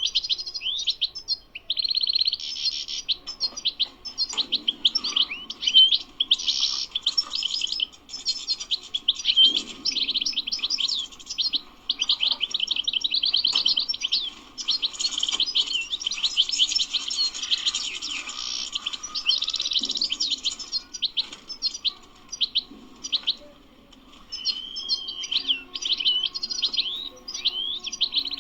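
European goldfinch singing a long, rapid song of twittering chirps and trills, with only brief pauses.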